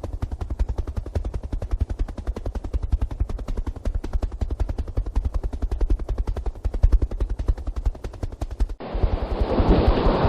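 Helicopter rotor blades beating in a fast, steady chop. About nine seconds in, the chop gives way abruptly to a steady rushing noise.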